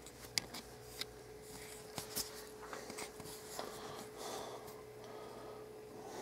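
Faint handling noise from a hand-held camera: soft rubbing and a few sharp clicks in the first couple of seconds, over a steady low hum.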